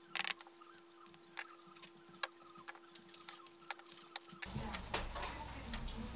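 Faint, irregular small clicks and soft taps as fingers place sliced chicken-breast sausage rounds onto pizza sauce in a ceramic baking dish. A faint steady hum stops about four and a half seconds in.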